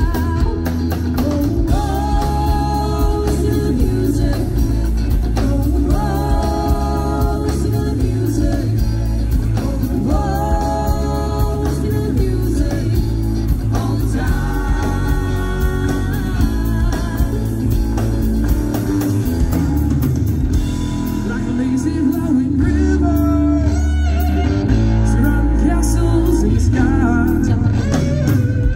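A live band playing a yacht-rock song: a singer over electric guitars, bass and a drum kit, with sung lines coming in phrases every few seconds over a steady beat.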